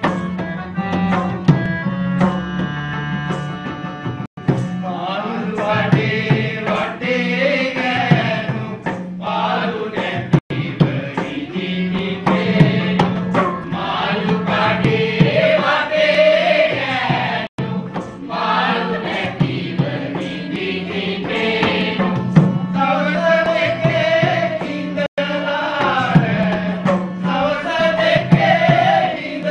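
A man and a women's choir sing a song together over hand-drum strokes and a steady low drone. The first few seconds are instrumental before the voices come in.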